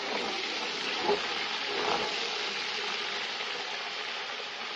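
Palm oil frying in a large aluminium pot, a steady sizzle and crackle, stirred with a plastic ladle that gives a few soft knocks.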